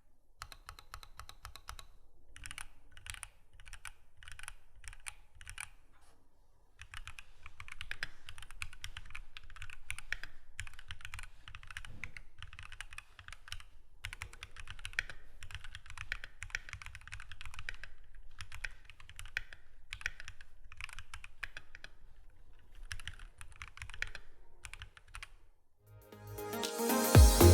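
Typing on a Keychron Q2 mechanical keyboard fitted with Gateron Box CJ linear switches: fast runs of keystrokes broken by short pauses. Electronic music comes in near the end.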